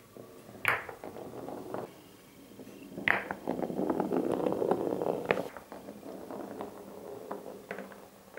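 A large steel ball and small marbles rolling along the grooved wooden blocks of a Cuboro marble run, with sharp clacks about a second in, around three seconds and a little after five seconds. The rolling rumble is loudest in the middle, then tapers off with small ticks of balls knocking against wood.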